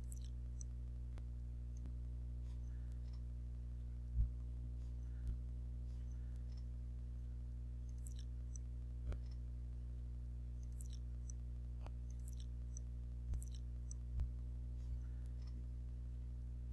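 Quiet room tone with a steady low hum, broken by scattered faint clicks and about seven small knocks, the loudest about four seconds in.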